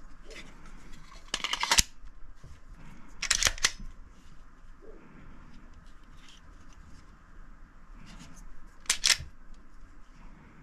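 A Glock pistol with a mounted weapon light being handled, its parts giving sharp mechanical clicks and clacks in three short bursts: about a second and a half in, ending in the loudest snap, again about three and a half seconds in, and once more about nine seconds in.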